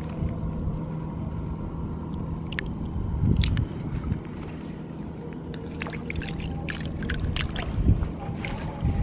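Hands sloshing and splashing in shallow muddy water among water plants, with short sharp splashes now and then over a steady low rumble.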